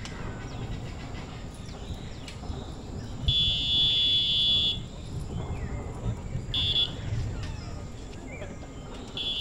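A steady, high-pitched buzzing call that comes and goes: about a second and a half long, a short burst a few seconds later, and again near the end, over scattered bird chirps in an aviary.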